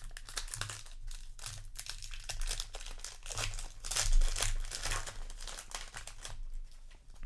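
Crinkling of a foil booster-pack wrapper as it is torn open and handled, an irregular run of crackles, loudest a little past the middle.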